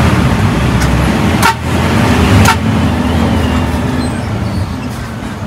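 Intercity bus engine running with road noise, a steady low hum, and two sharp knocks about a second apart.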